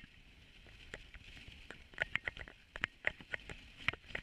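Dog sled running over a snowy trail behind a husky team: an irregular run of short clicks, creaks and patters, sparse at first and coming thick and fast from about two seconds in.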